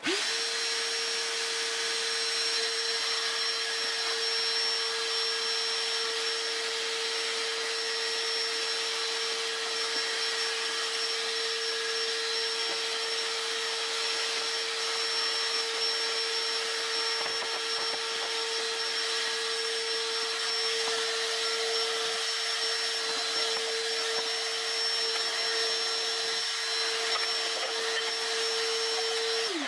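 Shop vacuum switched on, its motor spinning up to a steady hum and high whine as the hose sucks ash out of a wood stove's firebox. It is switched off near the end, its pitch falling as it spins down.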